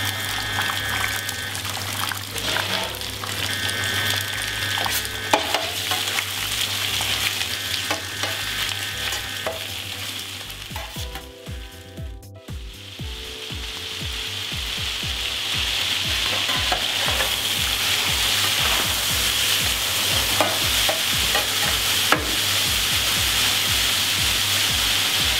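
Raw chicken pieces frying in ghee in the tilting pan of a FRIMA VarioCookingCenter, sizzling steadily. The sizzle dips briefly about halfway, then grows louder and steadier as the meat sears.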